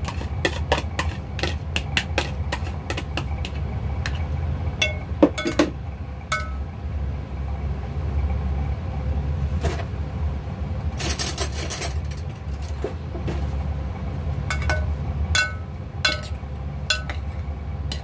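A metal spoon clinking and scraping against a glass mixing bowl while shredded crab sticks are stirred with beaten egg. The strikes come in quick runs at the start and again near the end, each with a short ring, over a steady low hum.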